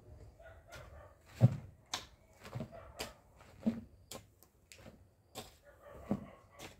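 A long-handled digging tool knocking and scraping in dry soil and against a plastic bucket as earth is scooped in. It is a string of sharp knocks and scrapes, about one or two a second, some with a dull thump; the loudest thump comes about a second and a half in.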